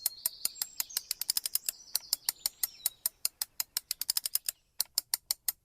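Cartoon sound effect of rapid light clicks, about eight a second, as the toy pig moves along; after a short pause near the end the clicks come more slowly.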